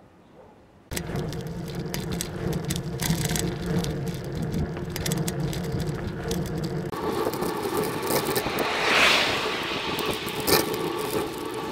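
Kick scooter rolling over a rough surface, its wheels rumbling and parts rattling and clicking. The sound starts abruptly about a second in, changes character around seven seconds, and a single sharp click comes near the end.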